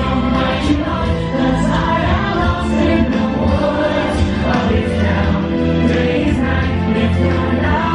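Loud show music: a choir singing over a strong, steady bass backing.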